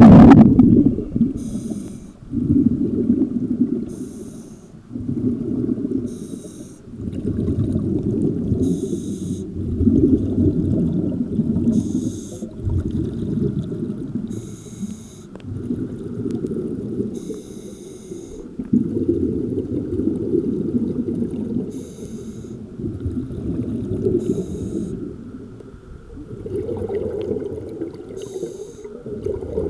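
Scuba diver breathing through a regulator underwater: about ten breaths, each a short hissing inhale followed by a longer low rumble of exhaled bubbles.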